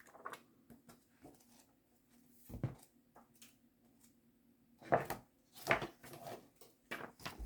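A paper instruction manual being handled and leafed through: a few brief rustles and a soft knock over a faint steady hum.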